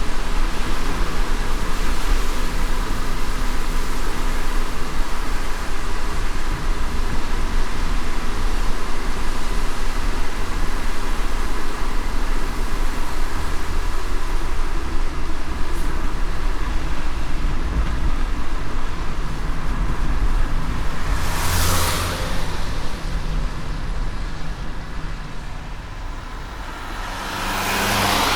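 Car driving on a wet road in rain: a steady hiss of rain and tyre spray over a low road rumble. Two louder whooshes come through, about three-quarters of the way in and again at the end.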